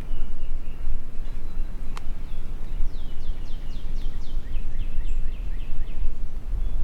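Wind buffeting the microphone with a steady low rumble, while a small songbird sings a quick run of about a dozen high falling notes, starting about three seconds in. A single sharp click comes near two seconds.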